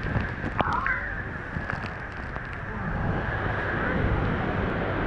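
Steady roar of Niagara Falls' falling water and spray, with wind buffeting the microphone. A brief high-pitched cry cuts through it about a second in.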